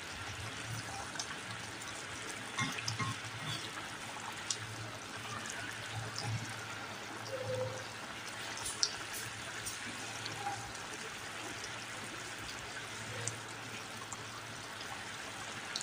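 Chicken and vegetable curry simmering in a wide pan: a steady bubbling hiss with scattered small pops and ticks.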